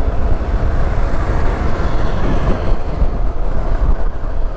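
Steady riding noise from a moving Yamaha NMAX 155 scooter: wind buffeting the microphone as a rough low rumble, with the engine and road noise running underneath.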